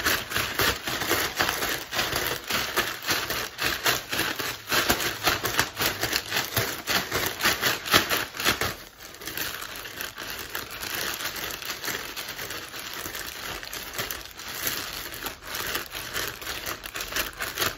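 A plastic shopping bag being waved rapidly back and forth as a fan, crinkling and flapping with each stroke. It is louder and choppier for the first half, then softer and more even from about halfway through.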